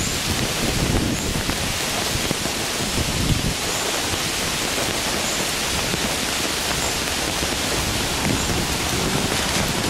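Heavy rain pouring steadily, with a few low rumbles now and then.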